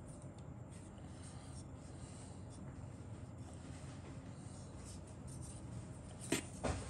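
Faint rubbing and handling of a plastic model-kit sprue in the fingers, with two sharp clicks near the end.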